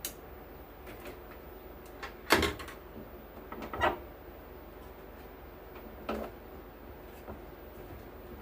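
Knocks and scrapes of an opened audio mixer and tools being handled on a workbench. The loudest come about two and a half seconds in and just before four seconds, with a smaller one past six seconds, over a faint steady hum.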